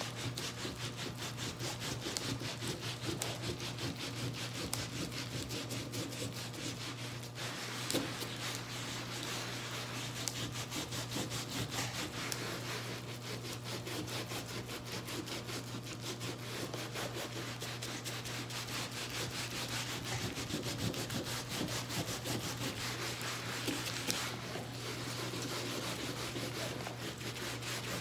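Damp cloth rubbed rapidly back and forth over wet photocopy paper glued to cotton canvas on a rigid board, a steady scrubbing that wears the paper away to leave only the transferred ink.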